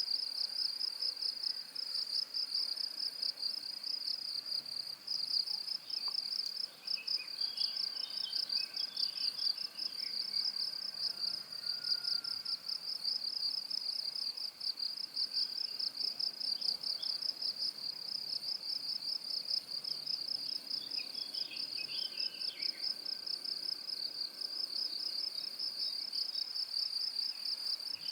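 Crickets chirping in a continuous high-pitched, rapidly pulsing trill. A few faint, lower chirps come and go in the background about a third of the way in and again about three quarters through.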